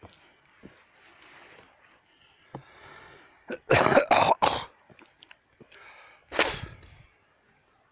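A person coughing: a quick run of three loud coughs about three and a half seconds in, then a single cough near the end.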